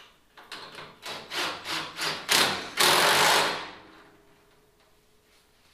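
Cordless drill driving in a bolt: about six short trigger bursts over two seconds, then one longer run of about a second that ends about four seconds in.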